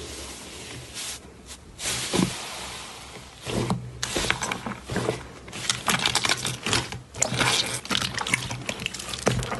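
Hands squishing and kneading slime in a plastic tub: wet squelches and many small popping clicks as air is pressed out. It starts with thick white fluffy slime, then clear yellow slime, where the pops become denser and louder.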